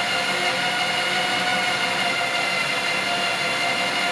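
Homemade motor-driven star-rolling tumbler running steadily, its orange bucket spinning with lead-shot cores and star composition tumbling inside; a constant hum with a steady high whine.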